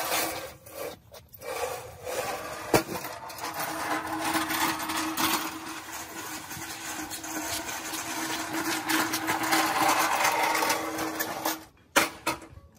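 Old, rusty hand pallet truck rattling as it is pulled across rough concrete, its wheels clattering, with a steady whine through the middle. A sharp knock comes about three seconds in and another near the end.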